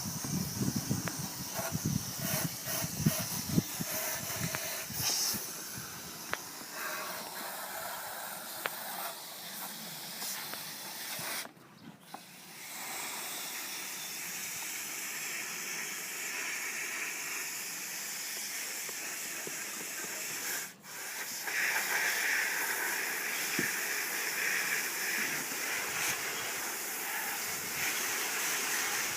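Water spraying from a garden hose onto an air conditioner's coils to rinse the dirt out: a steady hiss that cuts out briefly twice near the middle.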